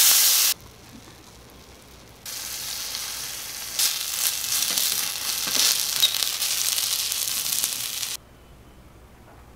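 Food sizzling in a miniature copper wok on a tiny stove, a steady high sizzle with a few clicks that starts about two seconds in and stops suddenly near the end. At the very start a louder hiss, as water hits the hot pan, cuts off after half a second.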